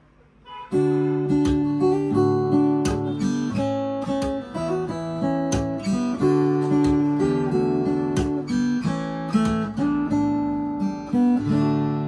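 Granada GL240c semi-acoustic guitar played through an acoustic guitar amplifier: a run of chords and picked notes that begins a little under a second in.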